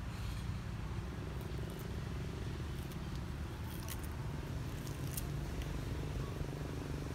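Steady low rumble with a few faint, sharp clicks scattered through it.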